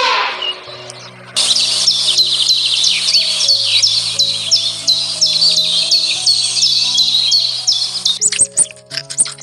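Birds chirping rapidly and repeatedly, about three chirps a second, over soft background music with long held low notes. The chirping cuts off abruptly about eight seconds in, giving way to short, sharp plucked clicks.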